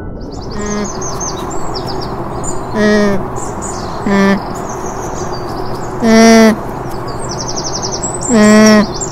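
A llama calling: five short calls on one steady pitch, the two near the end louder and longer, with birds chirping in the background.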